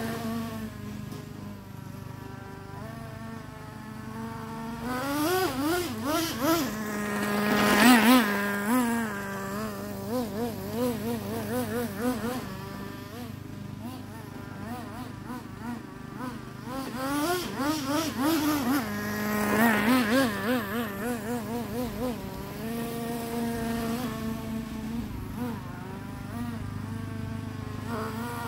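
Traxxas Nitro Slash RC truck's small two-stroke nitro engine buzzing while it is driven, its pitch wobbling up and down with the throttle. It swells louder twice, about eight and twenty seconds in. The engine is being broken in.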